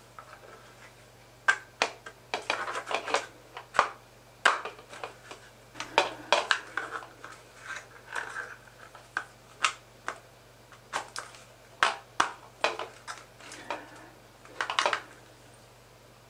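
3D-printed plastic crossbow parts being handled and fitted together: irregular clicks, taps and short scrapes as the recurve arms are pushed into the crossbow body.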